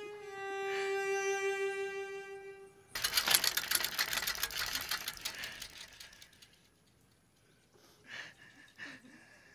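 A held note of background music for about three seconds, then a sudden run of rapid ticking from a spinning bicycle wheel, its freewheel clicking fast and slowing as it fades out over about three seconds.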